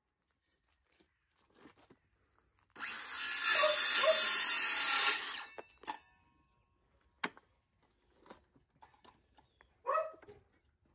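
Cordless circular saw starting up and cutting through a small pine batten to make a wedge, running under load for about two and a half seconds before stopping.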